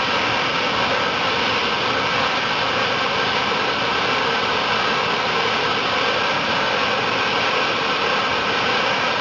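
Steady, even hiss of water jetting out of a spray nozzle in two opposed streams of fine mist.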